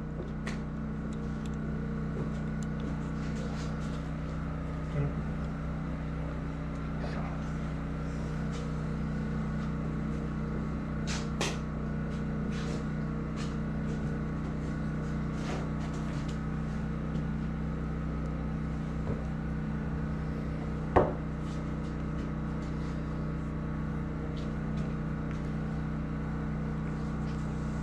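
Small clicks and light taps of a motorcycle carburetor and its rubber diaphragm boot being handled and fitted by hand, with one sharper knock about three quarters of the way through. Under them runs a steady low hum.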